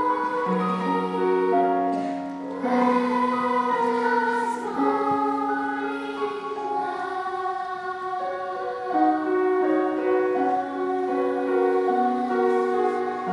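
Girls' choir singing in harmony, holding long notes that move in steps every second or two.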